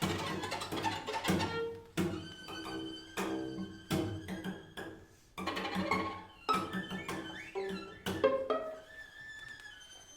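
String quartet playing short, sharply attacked chords, one every second or so, with brief gaps between them.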